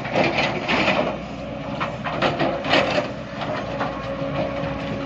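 Excavator engine running steadily while rock scrapes and clatters against steel, in irregular crunching strokes that come thickest in the first three seconds: boulders being dug and loaded.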